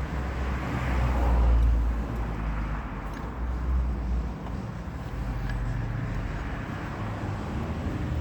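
Road traffic going by: a low rumble with tyre noise that swells and peaks about a second and a half in, then settles to a steady background hum, with a few faint clicks.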